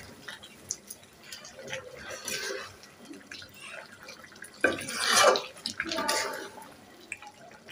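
Chicken curry being stirred in a cooking pot after fried onion is added, with wet bubbling and dripping sounds. There is a louder burst of noise about five seconds in.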